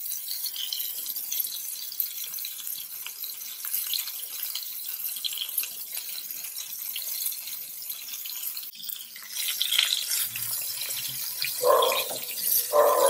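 Rice-flour-coated Bombay duck (bombil) fillets frying in hot oil in a pan: a steady sizzling hiss full of small crackles as more fillets go in. Two short, louder sounds near the end as a metal spatula works among the fillets.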